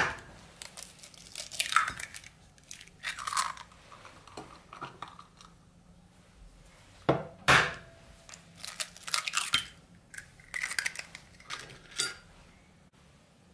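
Two eggs cracked into a ceramic bowl: a sharp tap of shell on the rim near the start and another about seven seconds in. Each tap is followed by short crackles of the eggshell as it is broken open and pulled apart.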